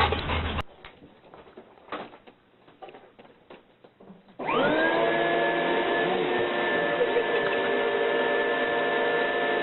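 A vacuum cleaner switched on about four seconds in, its motor whining up to speed and then running steadily. Before it there are only a few soft clicks.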